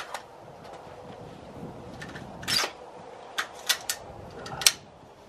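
A single 300 Blackout rifle shot: a sharp crack at the very start. It is followed by a few scattered clicks and knocks of handling.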